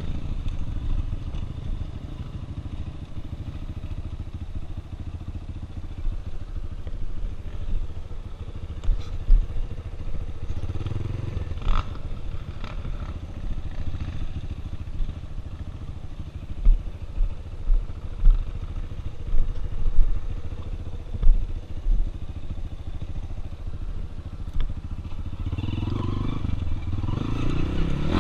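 Single-cylinder four-stroke trail motorcycle engine running steadily over rough ground. Sharp knocks and thuds come through the middle, and the engine grows louder as it revs up near the end.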